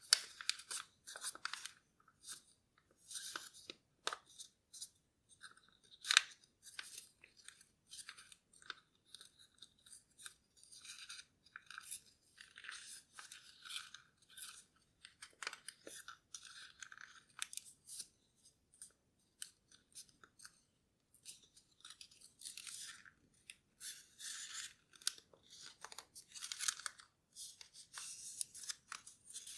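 Blue origami paper rustling and crinkling as it is folded and creased by hand, in short irregular bursts with a few sharp crackles, the loudest about six seconds in.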